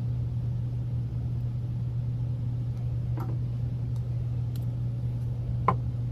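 Steady low machine hum, with a faint tick about three seconds in and a sharp click near the end.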